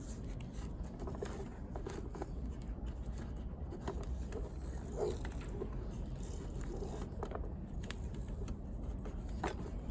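Hands working a hair dryer's repaired cord, wrapping it with tape: scattered light scrapes, rustles and clicks over a low background hum.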